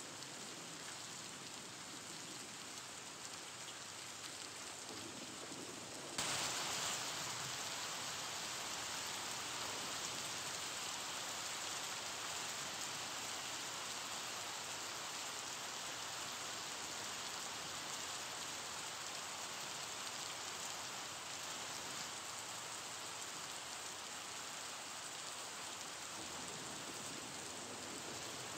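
Steady rain-like hiss that suddenly gets louder and brighter about six seconds in, then holds even.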